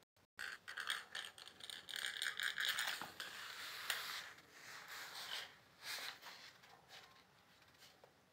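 Plastic bangle scraping and clicking across a concrete floor as a cat bats, paws and wrestles with it. The run of scrapes starts just after a split-second gap and fades out about six seconds in.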